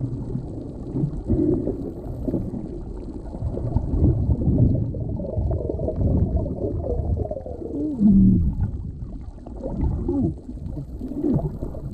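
Underwater sound picked up by a diving camera: a steady low rumble of water with gurgling, and a few wavering low tones that slide up and down, the clearest about eight seconds in.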